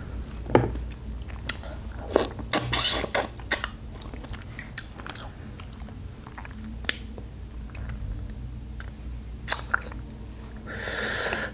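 Close-up chewing and biting on seafood-boil shellfish: scattered wet clicks and crunches, some in quick clusters, then a longer hissing, slurp-like sound just before the end.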